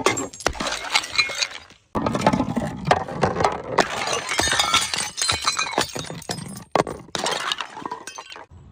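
Glass bottles shattering, with many shards clinking and tinkling. The crashing dies away briefly, a fresh loud break comes in suddenly about two seconds in, and the clinking thins out near the end.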